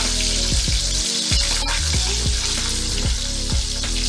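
Bilong-bilong fish frying in hot oil in a wok, a steady sizzle, while it is stirred and turned with a spatula. Background music with a steady beat plays underneath.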